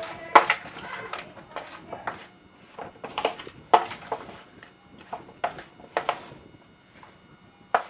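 Irregular knocks and scrapes from boiled potato pieces being stirred with spices in a large vessel, a dozen or so sharp clacks with soft scraping between them.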